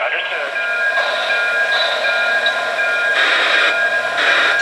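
O-gauge model steam train running on three-rail track: a steady mechanical hum and whine with hissing from its steam sound effects, which surges about three seconds in and again near the end.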